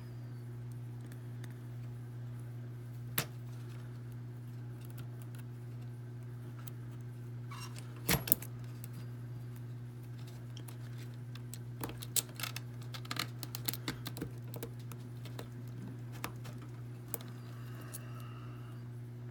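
Scattered small metal clicks and scrapes of tools working at a hardened-steel padlock's shackle retaining clip: one click about 3 s in, a louder cluster about 8 s in, and a run of quick clicks a few seconds later. A steady low hum runs beneath.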